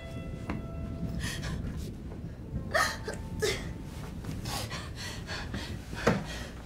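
About five short, sharp gasps and strained breaths from people wrestling on a bed, spaced a second or so apart. A faint bell-like tone dies away in the first half-second.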